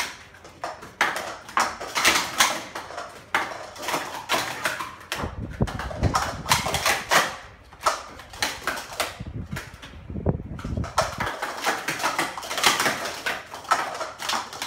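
Plastic sport-stacking cups clacking rapidly as two sets are stacked up and down in quick runs, with a low rumble under the clatter for several seconds in the middle.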